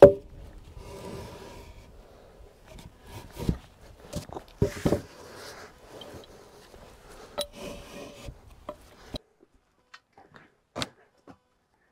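Heavy wooden cribbing timbers being slid and set onto a stack: a sharp knock at the start, then several more wooden knocks and scraping over the next nine seconds, with a couple of faint clicks near the end.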